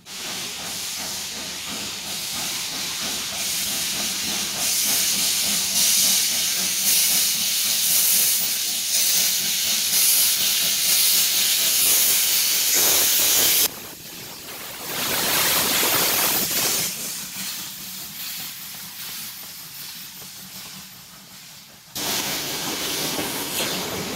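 Ty2 steam locomotive, a wartime Class 52 type, starting away with a train, with a loud hiss of steam from its open cylinder drain cocks. The sound drops suddenly about two-thirds of the way through and comes back louder near the end as the coaches roll past.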